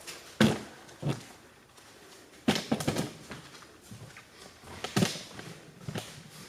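Scattered knocks and clunks of cat-tree parts being handled and fitted together, with a quick run of clatters about two and a half seconds in and two more knocks near the end.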